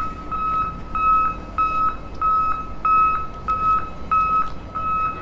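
Steady electronic beeping: one single-pitched beep repeating evenly, about five every three seconds, like a reversing alarm.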